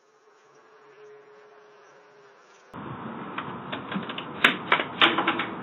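Faint steady hum, then about three seconds in a clatter of irregular clicks and knocks, with two sharper knocks near the end.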